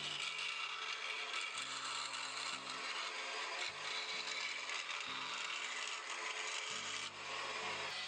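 Small vertical bandsaw cutting through a thin wooden knife-handle scale: a steady sawing noise of the blade in the wood, with a brief dip near the end.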